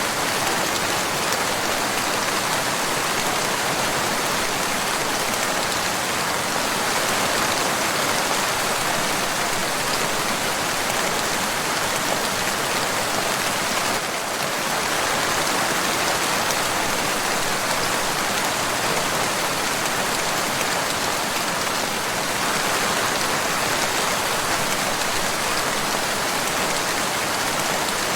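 Steady rain falling, an even continuous hiss of drops with no let-up.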